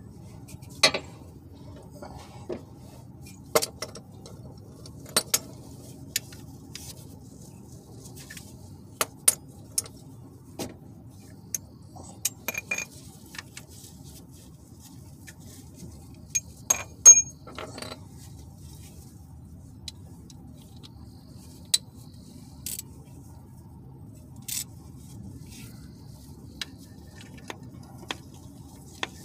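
Scattered sharp metallic clinks and clicks of hand tools and parts being handled, a couple of dozen over the stretch, the loudest about 17 seconds in, over a steady low hum.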